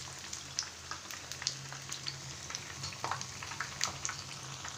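Jackfruit fritters in batter (sweet bajji) deep-frying in hot oil, a steady sizzle full of small crackling pops, with a low steady hum underneath.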